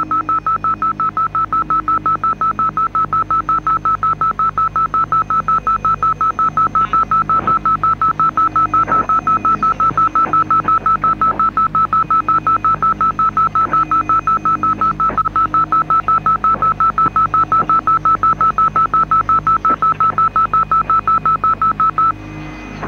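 Rapid electronic beeping at one high pitch, about three to four beeps a second, over a low sustained drone; the beeping cuts off suddenly about a second before the end.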